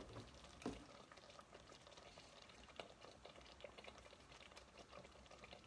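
Faint scratchy rasping and scattered small clicks of a block of fontina cheese being grated on a handheld stainless steel grater.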